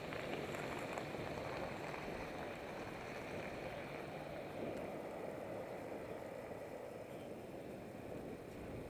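Steady rush of wind over a bicycle helmet camera's microphone while riding, mixed with road traffic noise.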